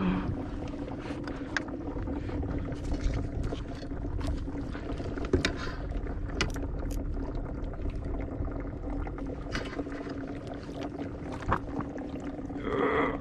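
Water sloshing, splashing, and scattered knocks and clicks against a kayak as a hooked striped bass is fought and brought alongside. A steady low hum runs underneath.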